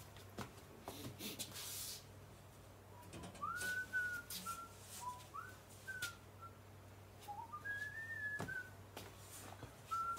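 A man whistling a tune to himself, a run of short notes that slide up and down, starting about three seconds in. A few light clicks and knocks of things being handled come in between, with one sharper knock late on.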